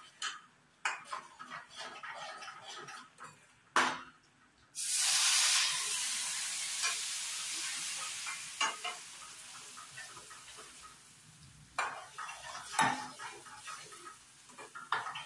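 Steel spoon scraping and clinking in a steel kadhai as semolina and wheat flour, roasted brown, are stirred. About five seconds in, liquid meets the hot roasted mixture with a sudden loud sizzle that fades over several seconds, and the spoon knocks sharply on the pan twice.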